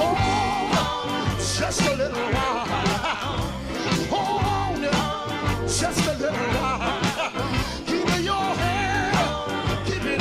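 Gospel quartet song with a full band: a lead voice holding long wavering notes over a steady drum beat and bass line.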